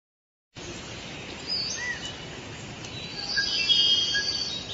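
Forest ambience with birds calling: short chirps and whistles over a steady hiss, with a busier patch of trilling calls about three to four seconds in. It starts about half a second in, after a moment of silence.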